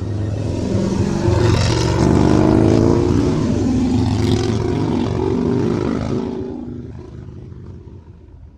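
Motorcycle engine passing by: it grows louder over the first second or so, holds loud for several seconds, then fades away towards the end.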